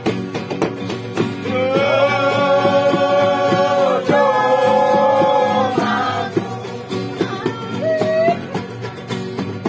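Acoustic guitars strummed in a steady rhythm, with singing that comes in about a second and a half in on two long held notes, followed by shorter sung phrases.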